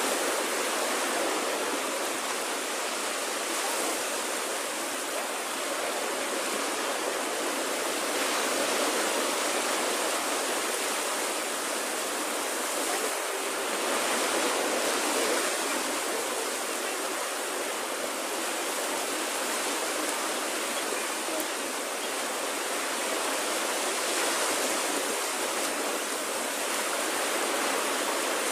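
Small waves breaking and washing up a sandy beach: a steady rushing hiss that swells and eases every few seconds.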